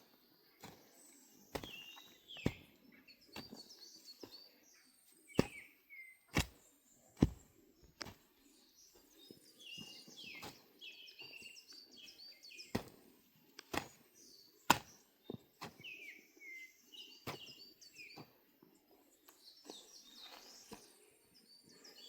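Small birds chirping and calling over and over, with sharp knocks at irregular intervals, about a dozen in all, which are the loudest sounds.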